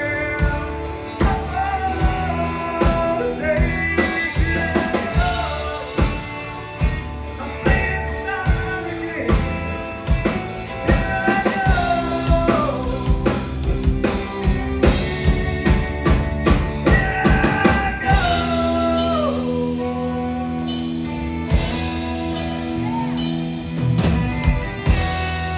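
Live band music: a fiddle bowing the lead melody with sliding, falling phrases over strummed acoustic guitar, electric bass and a drum kit.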